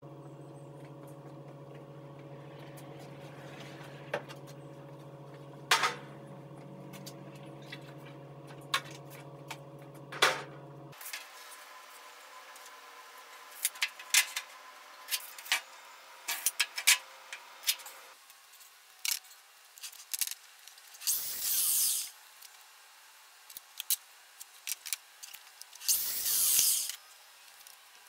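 Workshop handling sounds: a steady hum with a few sharp clicks. After an abrupt change about eleven seconds in come scattered taps and knocks of a speed square and boards being handled, and two rasping bursts of about a second each near the end.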